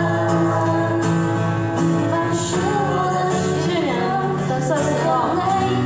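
Live acoustic band playing a song through a hall's PA: acoustic guitar and other instruments with a voice singing over them.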